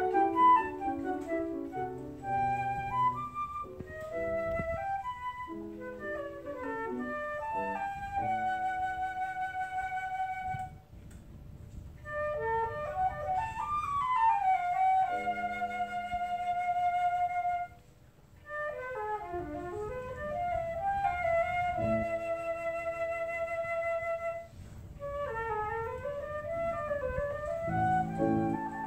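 Silver concert flute playing a classical piece with piano accompaniment: quick runs up and down between long held notes over lower piano chords. The music breaks off briefly twice, about a third and about two thirds of the way through.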